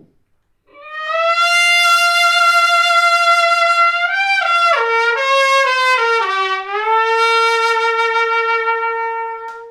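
Trumpet played with a cloth draped over its bell, a soft felt-crown style muting: one long held note, a short run of falling notes, then a long lower note held.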